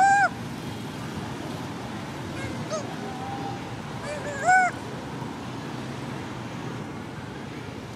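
Baby long-tailed macaque crying: short, high calls that rise and then fall in pitch, a loud one at the start, a fainter one about three seconds in, and another loud one about four and a half seconds in, calling for its mother. A steady low rumble lies underneath.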